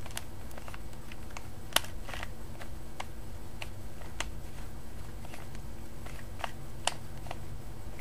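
Plastic Rubik's Cube being turned fast by hand: irregular clicks and rattles of its layers, two of them sharper snaps, over a steady low hum.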